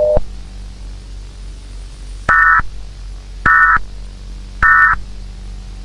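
A steady tone cuts off at the start. Then come three short, identical bursts of warbling digital data tones, about a second apart: an Emergency Alert System SAME header.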